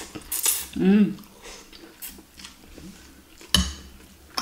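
Noodles slurped into the mouth about half a second in, followed by a short hum of the voice. Metal fork and spoon scrape and clink against the glass bowl, with one sharp clink about three and a half seconds in.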